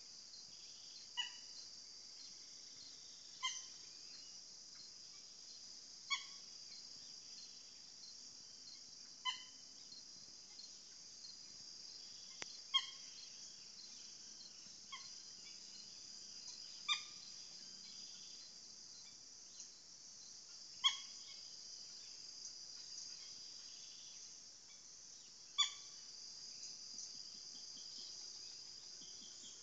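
A steady high insect chorus, with a short pitched animal call repeating about nine times at irregular gaps of two to five seconds.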